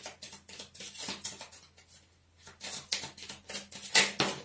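Tarot or oracle cards being handled: a run of light taps and flicks of card stock, with the sharpest tap about four seconds in.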